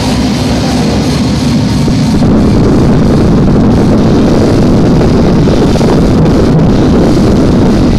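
A live band playing loud rock music through a concert PA, heavy in the low end and steady throughout.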